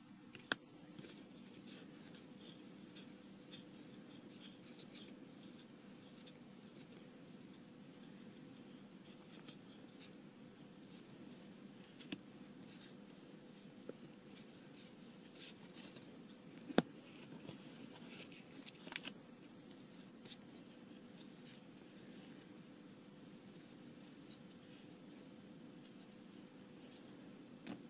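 Trading cards being flipped through and slid off a hand-held stack: light irregular clicks and scrapes of card edges against each other, over a faint steady hum.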